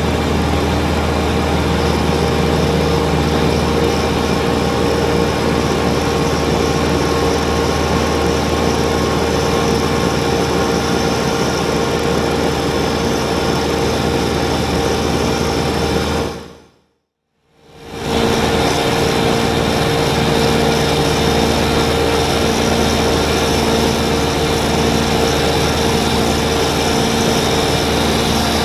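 Kubota BX23S compact tractor's three-cylinder diesel engine running steadily under working load. The sound fades out briefly about two-thirds of the way through and comes back at the same steady level.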